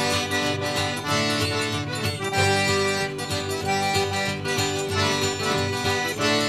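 Background music: an upbeat Cajun-style tune with accordion and fiddle over a steady beat.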